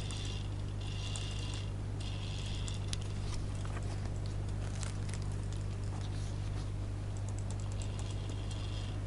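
Plastic K'Nex gear train and ratchet pawls of a motor-driven crank CVT clicking and whirring over a steady low hum, with the drive working against the load of the wheels. A rhythmic clicking, about once a second, is heard at the start and again near the end.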